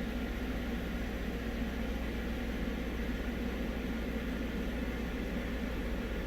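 A steady low mechanical hum under an even hiss.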